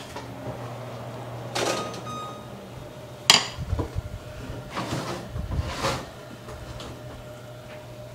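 An oven door clacks open about three seconds in, followed by knocks and scrapes as the metal rack and baking sheet are pulled out of the oven, over a steady low hum.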